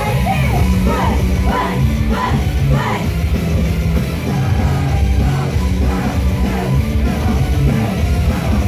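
Loud live rock music with heavy bass and drums, with shouted vocals over it, strongest in the first few seconds.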